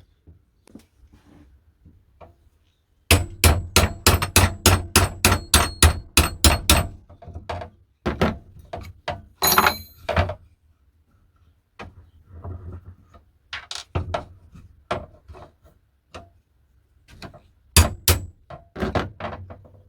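Hammer driving a punch against a saw handle's metal pins to knock them out: a quick run of about a dozen ringing metallic taps a few seconds in, then scattered harder taps and clinks. The pin is stubborn.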